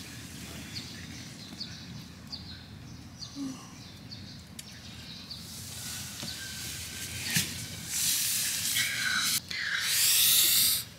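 Outdoor morning ambience heard from inside a tent: short high bird chirps repeat about once or twice a second. From about halfway a high hiss builds and becomes the loudest sound in two spells near the end.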